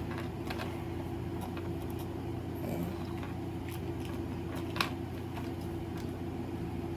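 Steady electric fan hum with a few light clicks of small objects being handled, the sharpest about five seconds in.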